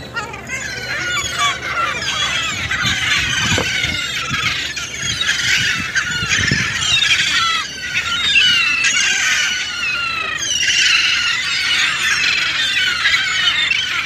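A large flock of gulls, many of them juveniles, calling over one another: a constant din of many high, short calls that rise and fall and overlap without a break.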